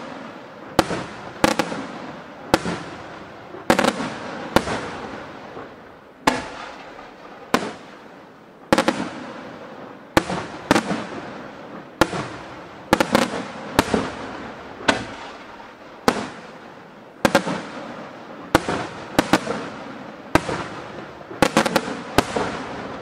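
Aerial firework shells bursting one after another, a sharp bang roughly once a second, each followed by a fading hiss as the stars burn out.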